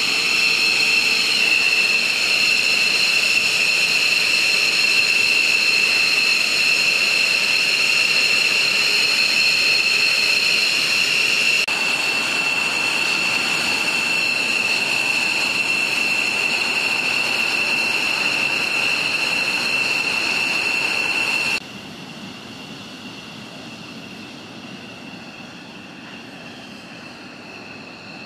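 F-15E Strike Eagle jet engines running on the flight line: a loud, steady high-pitched turbine whine over a broad rushing noise. The level steps down slightly about 12 s in and drops sharply about three-quarters of the way through, the whine carrying on fainter.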